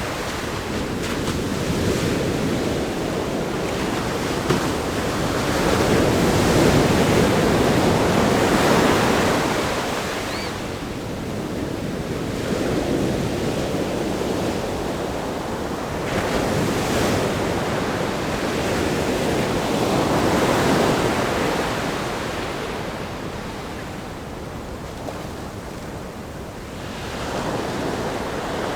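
Ocean surf breaking against a rock groin and washing over sand, a continuous rush that swells and eases in slow surges several seconds long.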